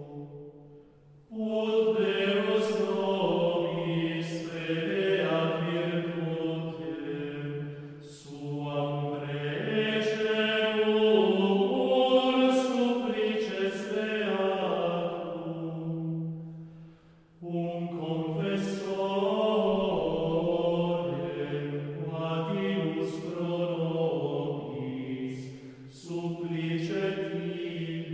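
Male choir singing Gregorian chant in unison, a Latin hymn. It comes in long phrases, broken by short pauses about a second in, around two-thirds of the way through and again near the end.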